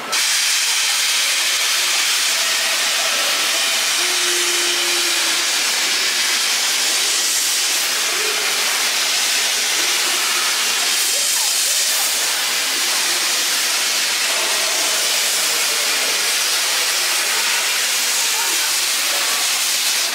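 Steam locomotive releasing steam: a loud, steady hiss that starts and stops abruptly and holds unchanged for about twenty seconds.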